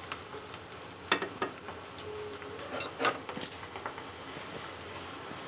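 Sliced onions frying in oil in a kadhai, a steady faint sizzle, with a few sharp knocks and scrapes of the stirring spoon against the pan in the first three seconds.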